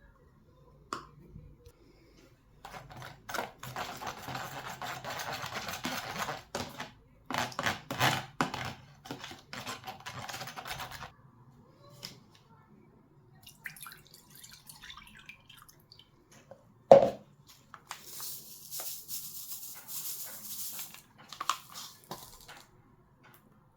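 Kitchen preparation sounds: three stretches of steady hissing noise, with light clicks and clinks of dishes and utensils, and one sharp knock about two-thirds of the way through, the loudest sound.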